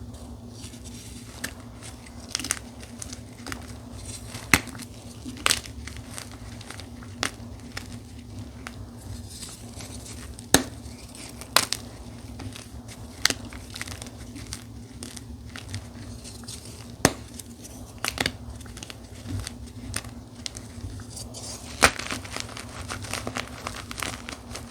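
Dyed gym chalk being crushed, crunching and crumbling with irregular sharp cracks and a busier patch of crackling near the end, over a steady low hum.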